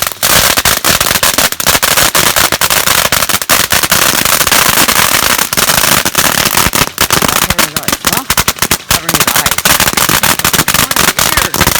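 Loud, rapid crackling and popping, dozens of sharp cracks packed close together without a break.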